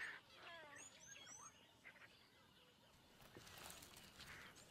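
Faint wild bird calls over quiet bush ambience: a quick run of falling whistled chirps and a few thin high chirps in the first second and a half, then only faint background noise.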